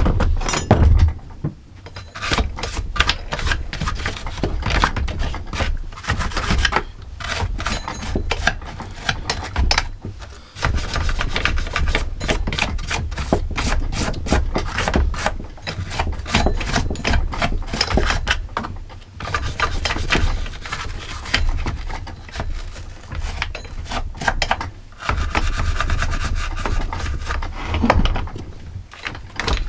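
Hand work on a chainsaw's bar, chain and sprocket: a long run of irregular metal scraping, rubbing and clicking, with a short break about ten seconds in.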